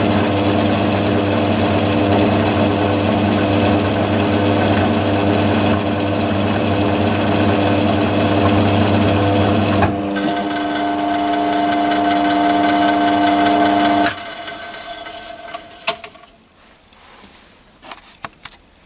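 Myford ML7 lathe running with an end mill in its spindle, milling a brass block, a steady machine hum with a cutting hiss. About ten seconds in the cut ends and the lathe runs on with a steady hum; some four seconds later it is switched off and winds down, followed by a few sharp clicks near the end.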